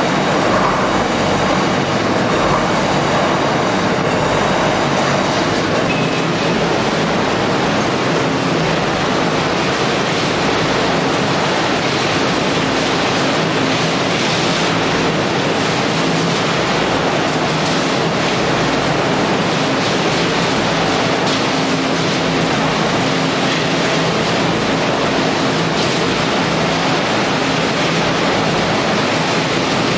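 Loud, steady mechanical din of a Tyrannosaurus municipal-waste shredding and sorting line running, with no single machine or event standing out.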